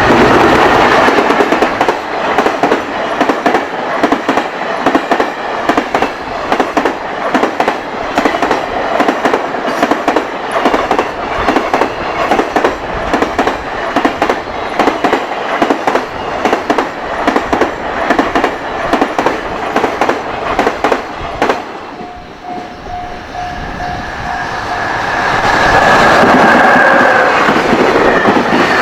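High-speed container freight train passing close by, its wheels clattering in a fast, steady run of clicks over the rail joints. About 22 seconds in the clatter dies away and a level-crossing warning bell rings in a quick repeating ding, then the noise swells again near the end with a steady whine as another train comes through.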